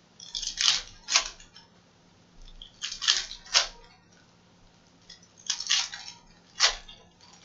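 Foil trading-card pack wrappers being ripped open by hand, crinkling and tearing in three bursts about two and a half seconds apart, each with two or three sharp rips.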